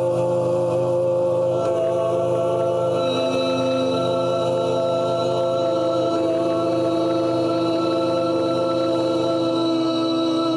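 Sustained choir-like chord built from sampled notes of one man's sung voice, played from a mixing desk's faders and given a reverb tail. The notes are held steadily, and new pitches join the chord about 1.5, 3 and 6 seconds in, so the harmony shifts as it goes.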